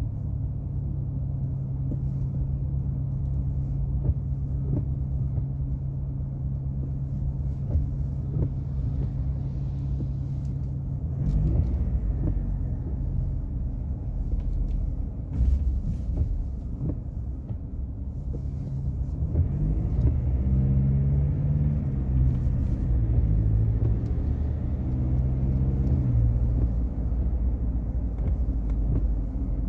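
Ford Ranger Wildtrak pickup on the move, its engine and road rumble running together. The engine holds a steady note for about the first eleven seconds, then the note shifts, and from about twenty seconds in it rises and falls in pitch for several seconds.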